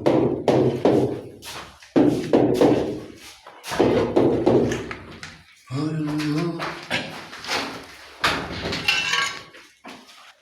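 Repeated knocking and thudding in clusters, ringing briefly in the room, with voices in between.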